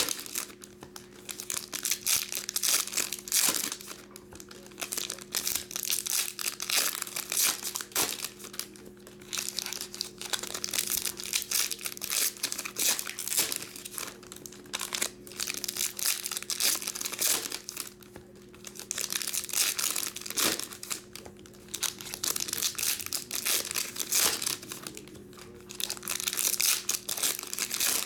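Foil wrappers of 2022 Topps Pro Debut baseball card packs crinkling and tearing as the packs are opened by hand. The crackle comes in repeated spells with brief pauses between them, over a faint steady hum.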